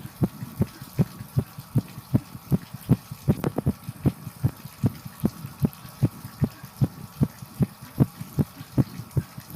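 A human heartbeat, fast and steady, thumping about two to three times a second over a faint hiss of shower water.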